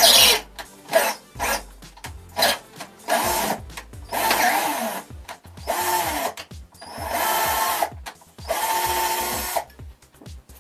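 Cordless drill boring into a steel angle bracket, run in short trigger bursts and then in five longer runs of about a second each, its pitch dipping and recovering as the bit bites.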